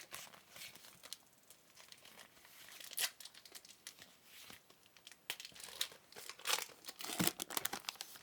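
Trading card pack wrappers crinkling and cards being handled: a steady run of quick, sharp crackles and rustles.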